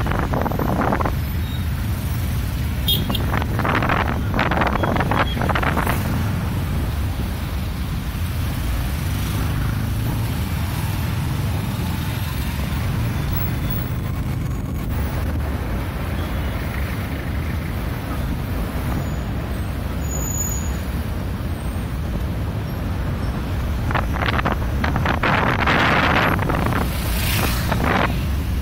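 Motorcycle taxi running through city traffic, its engine a steady low rumble, with louder bursts of street noise a few seconds in and again near the end.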